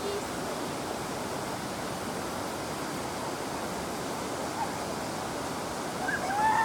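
River water flowing with a steady rushing hiss, and a bird calling a few times near the end.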